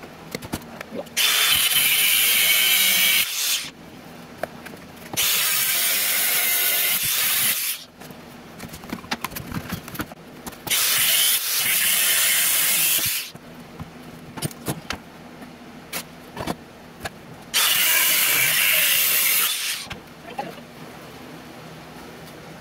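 Varo angle grinder cutting into square steel tubing in four loud passes of two to three seconds each. Between the passes come quieter clicks and knocks.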